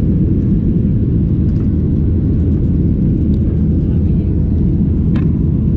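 Boeing 737-800 cabin noise heard at a window seat over the wing: a steady, loud low rumble from the CFM56-7B turbofans and airflow during the climb after take-off. A brief click sounds about five seconds in.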